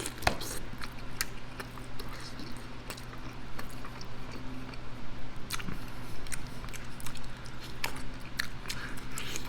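Close-up eating sounds of a hot wing being bitten and chewed: irregular wet mouth clicks and smacks, over a steady low hum.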